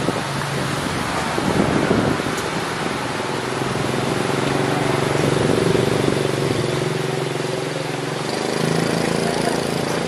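A motor vehicle engine running with a steady hum that shifts slightly in pitch, over a constant rushing noise.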